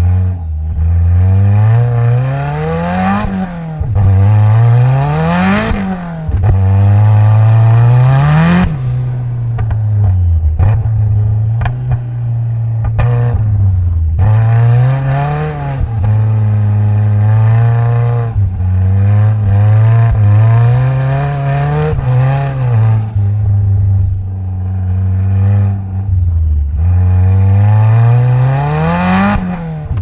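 Onboard sound of a 500 HP Mitsubishi Lancer Evolution X's turbocharged 2.0-litre four-cylinder driven hard on a snowy track. The revs climb and drop again and again through gear changes and lifts, with a high whine rising and falling with them and a few sharp cracks around the middle.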